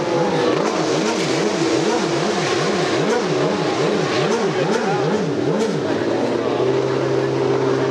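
Race motorcycle engine blipped over and over, its note rising and falling evenly about two and a half times a second, then holding a steady note for the last couple of seconds.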